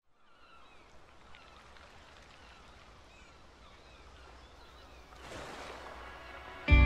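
Faint outdoor ambience with scattered distant bird chirps over a low rumble, and a soft rush of noise swelling about five seconds in. Near the end, music begins suddenly with sustained chords, much louder than the ambience.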